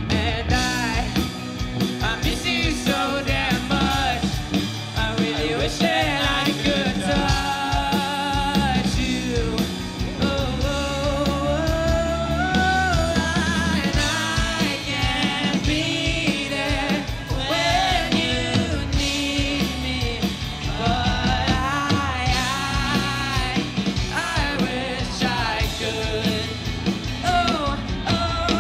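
Live rock band: a lead vocalist sings a wavering melody over electric guitars and drums.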